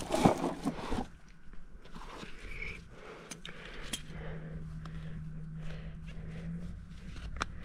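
Faint scraping and small clicks of a steel hoof pick working at the sole and frog of a horse's hoof. A faint steady hum runs for a couple of seconds past the middle.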